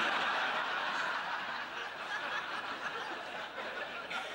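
Live audience laughing at a joke: a crowd's laughter that breaks out suddenly, loudest at first, then slowly eases off.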